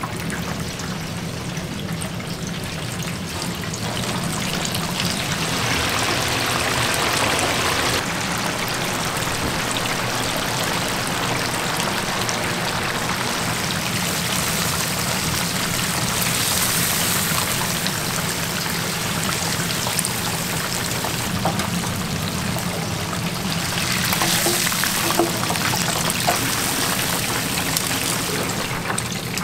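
Battered chicken pieces deep-frying in a large commercial fryer, the hot oil bubbling and sizzling steadily over a low hum. A few light clicks near the end.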